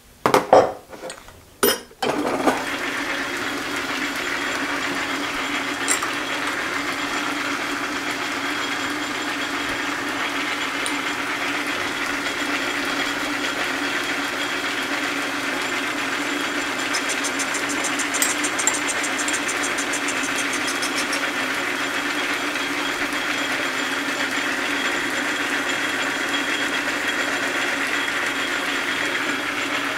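A few loud knocks, then a belt-driven metal lathe switches on about two seconds in and runs steadily with a metal disc turning in its chuck.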